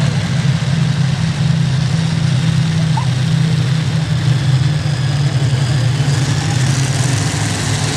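Heavy modified pulling tractor's engines idling, a steady low drone that holds its pitch.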